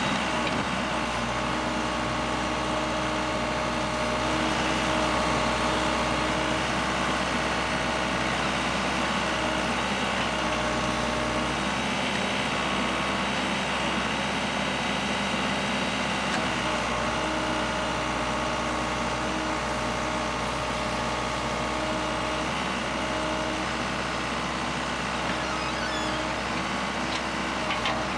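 An engine running steadily at a constant speed, with an even hum and no changes in pitch.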